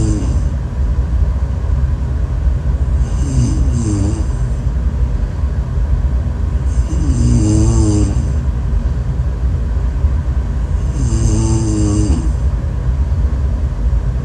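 Snoring in a slow rhythm, about one snore every four seconds. Each snore is a wavering, pitched drone with a breathy hiss, heard over a constant low rumble.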